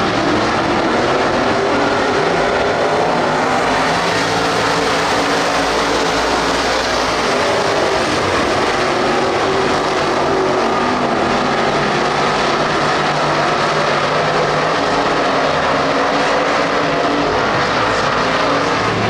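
A pack of dirt-track street stock race cars running together around the oval, their engines a steady, loud drone.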